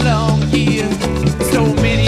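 Background music: an upbeat Latin, salsa-like song with a steady bass line and a wavering singing voice.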